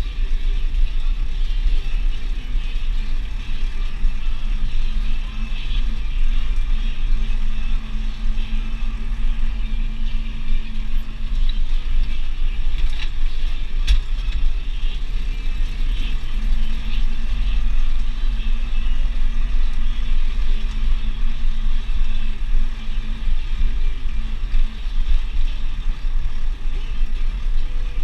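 Deutz DX 4.70 tractor's air-cooled diesel engine running steadily, heard from inside the cab while it tows a slurry tanker across a field, with a single sharp click about halfway through.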